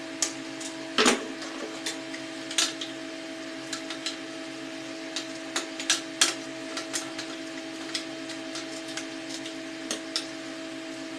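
Scattered light clicks and taps of small tools and parts being handled during outlet wiring work, the sharpest about a second in and around six seconds in, over a steady hum.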